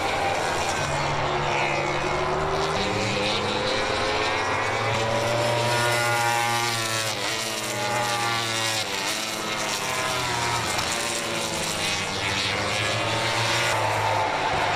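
MotoGP racing motorcycles' 1000 cc four-cylinder engines revving hard through corners. The engine note rises and falls over and over with throttle and gear changes.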